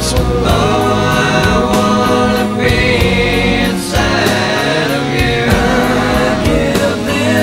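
Background music: a song with singing over a full band and a steady drum beat.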